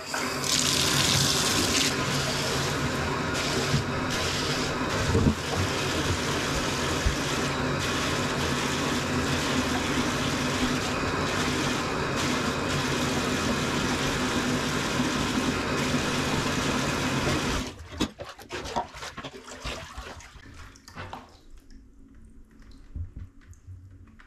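Bathtub tap running full and steady as water is caught in a cup to wet a puppy, then shut off suddenly about three-quarters of the way through. After that, quieter, irregular splashes and drips.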